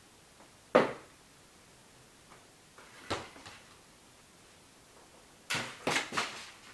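Hard props knocking and clattering on a table as skill toys are swapped in quick succession. A single sharp knock comes about a second in, a smaller one about three seconds in, and a quick cluster of three knocks near the end.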